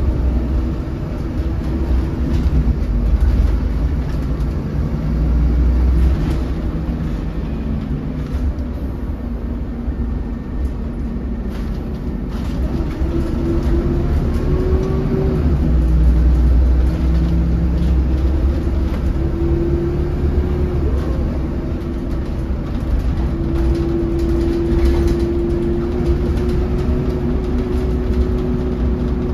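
Interior running noise of a 2008 MAN 16.240 Designline diesel bus on the move: a low engine rumble that swells and eases as the bus accelerates and slows, with a whine from the drivetrain that rises and falls in pitch with road speed.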